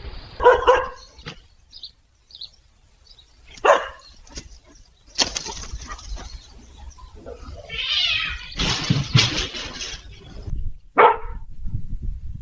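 A cat crying out in short pitched calls: one near the start, one about four seconds in and one near the end. Between them, around the middle, come longer rough, noisy bursts.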